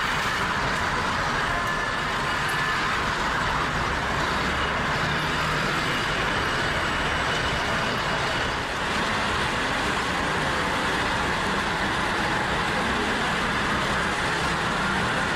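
Steady city street traffic noise on a wet road: a continuous, even hiss of tyres and passing vehicles with a faint low hum underneath.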